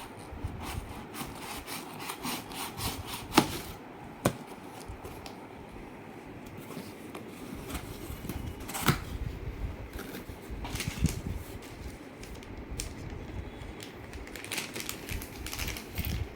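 A gift parcel being handled and opened: rustling and scraping packaging with irregular sharp clicks and snaps, two louder clicks about three and four seconds in.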